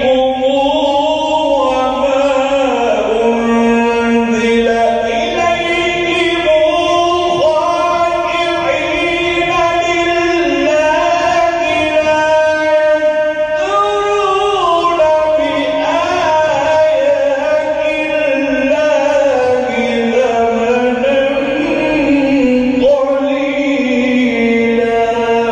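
Quran recitation: a single voice chanting in slow melodic phrases, drawing out long held notes with ornamented rises and falls in pitch.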